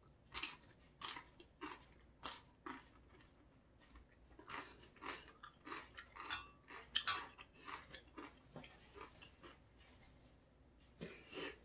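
Close chewing and crunching of fresh napa cabbage kimchi (geotjeori): irregular crisp crunches in bursts, with a quieter pause near the end before a few more crunches.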